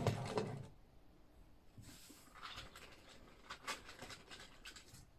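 Faint rustling and a few light clicks and taps from handling plastic toy figures and rummaging in a bag.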